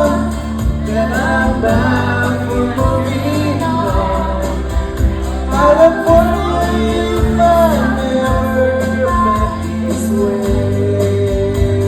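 Recorded folk song playing: a melodic line with gliding, singing-like notes over a steady bass, with no clear words.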